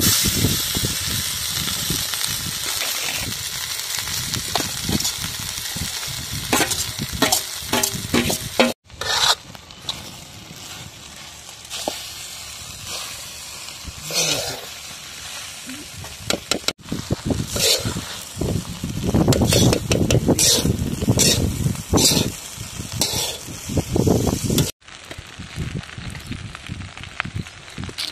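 Rice and vegetables frying and sizzling in a large black wok, with a metal spatula scraping and stirring through them in repeated strokes. The sound breaks off abruptly three times, as if cut between clips.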